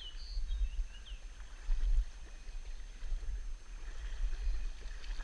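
Steady rush of river water with an irregular low rumble, and a few faint high chirps in the first second.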